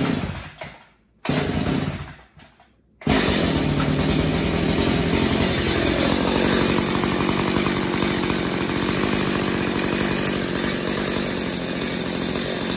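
Two-stroke chainsaw being pull-started: two brief bursts that die away, then it catches about three seconds in and settles into a steady idle, warming up after a cold start.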